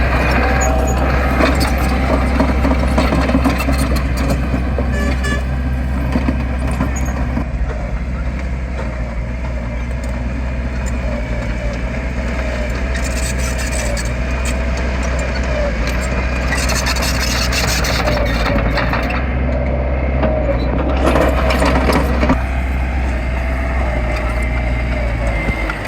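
Heavy diesel engine of earthmoving machinery running steadily under load, its pitch wavering a little, with occasional short knocks and clanks.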